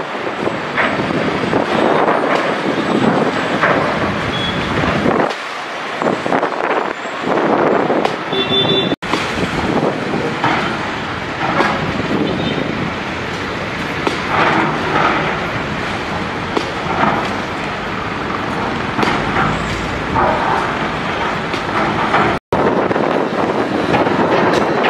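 Demolition site noise: machinery working with knocking and clattering of broken concrete, mixed with people's voices. The sound drops out abruptly twice.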